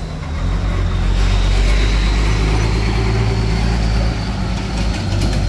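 A large motor vehicle driving past: a low engine rumble that swells over the first couple of seconds and eases off near the end.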